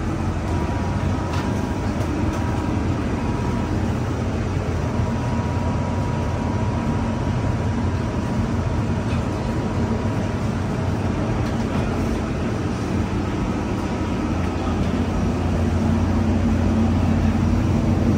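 Steady low mechanical drone of an airliner's ground and air-conditioning machinery heard at the jet bridge and boarding door, with a faint thin whine over it. It grows a little louder near the end, at the open door.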